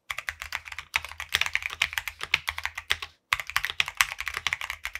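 Keychron Q2 Pro 65% mechanical keyboard with an all-metal body, typed on fast with both hands on its stock, out-of-the-box switches. A quick clatter of keystrokes, broken by two short pauses, about one second in and just past three seconds.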